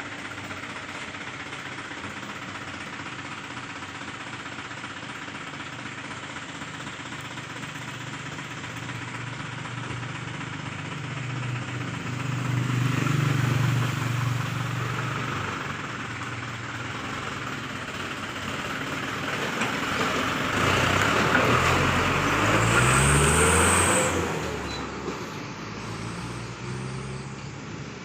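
Isuzu Giga truck's diesel engine idling through a newly fitted flexible exhaust pipe, revved up briefly about twelve seconds in, then again in a longer rev that climbs in pitch and drops back to idle near the end, with a brief high whistle at its peak.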